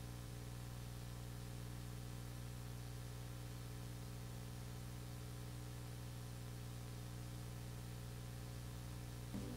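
Steady electrical mains hum, a low buzz with a row of higher even tones above it, unchanging throughout; a slight soft bump just before the end.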